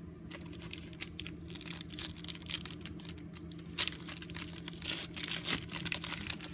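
Foil trading-card pack wrapper being torn open and crinkled by hand: a run of crackling rustles, loudest a little under four seconds in and again around five seconds in.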